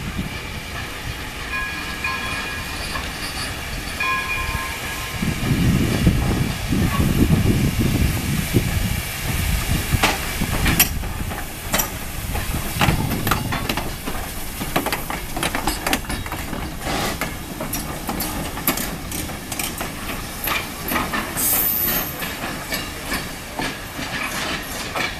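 Essex Terminal Railway No. 9, an 0-6-0 steam locomotive, passing slowly with steam hissing and a heavy low rumble, followed by its train's wheels clicking and clanking over the rail joints. A level-crossing bell rings steadily in the first few seconds.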